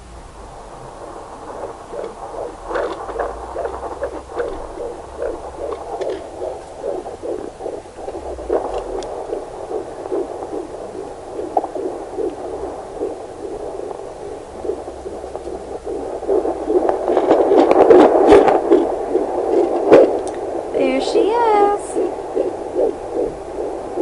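Fetal Doppler loudspeaker playing an unborn baby's heartbeat: a fast, even whooshing pulse. It grows louder in the second half, with a few sharp knocks and a brief wavering tone near the end.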